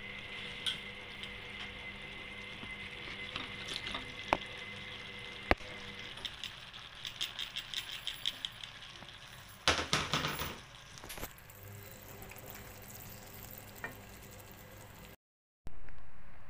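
Vegetables frying with a soft sizzle in a metal wok while a wooden spoon stirs and scrapes them, with scattered clicks of the spoon on the pan. About halfway there is a quick run of clattering taps, followed by a louder scraping burst, then the sound drops out for a moment near the end.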